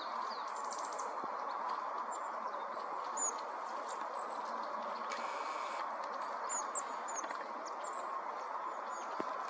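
Coal tit calling with short, thin, high-pitched chirps, scattered and irregular, over a steady background rush.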